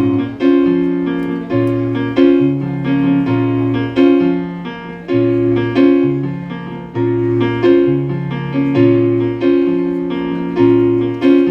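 Instrumental song passage of piano chords on an electric keyboard over a stepping bass line. Each chord is struck in a steady rhythm and fades before the next.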